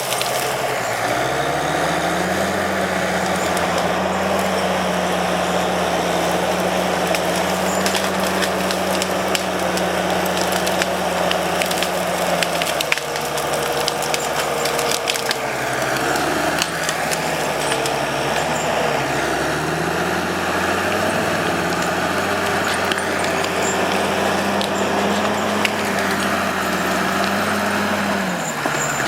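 Timberjack skidder's diesel engine working under heavy load, its pitch sagging and recovering several times as it pushes. Scattered knocks and clatter throughout.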